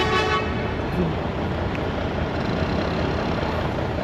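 Busy city street traffic running steadily, opened by a short honk from a vehicle horn lasting under half a second.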